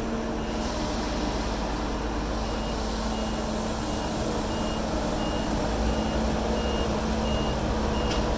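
Reversing alarm on a heavy construction vehicle beeping, short high beeps about one and a half a second, over the steady rumble of the machine's engine running.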